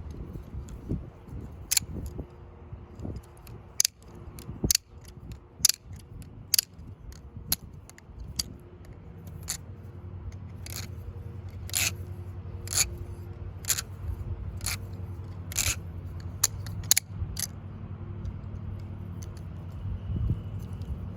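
Spasmfingers Dragon plastic balisong trainer being flipped: sharp clicks of the handles striking each other and the latch, irregular at one or two a second, stopping a few seconds before the end, over a low steady hum.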